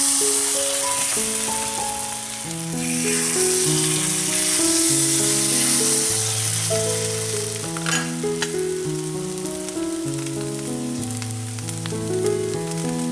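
Batter sizzling in hot oil as it is ladled into the wells of a cast-iron bánh khọt pan, the hiss swelling as each fresh well is filled. A slow melody of background music plays over it.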